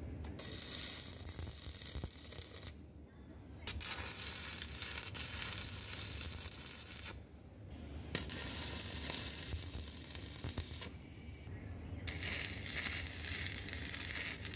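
Electric arc welding on a JCB bucket's pin bore, a harsh frying crackle in runs of a few seconds that stops briefly three times as the arc is broken and struck again.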